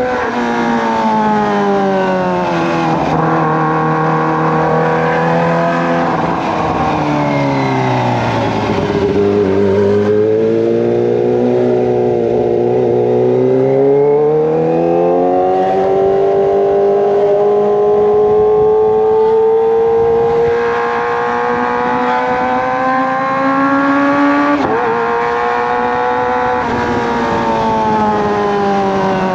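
Kawasaki ZX-25R's inline-four engine running through a Racefit Slash aftermarket exhaust while being ridden. The engine pitch falls to a low about nine seconds in, climbs back and holds fairly steady, then changes quickly near the end.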